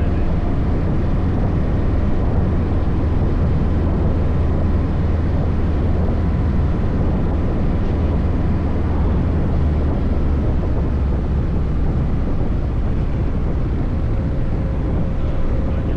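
Kawasaki Voyager 1700's V-twin engine running steadily under way, a low drone with wind noise over the microphone.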